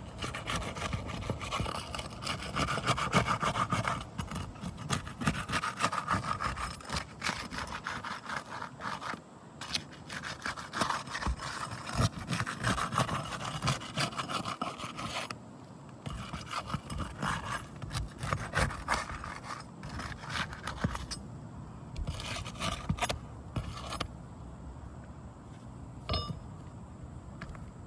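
Asphalt shingles being broken loose with a flat shingle-removal bar: repeated scraping and rasping strokes as the bar is worked under the tabs to break the sealant strips, with a few short pauses.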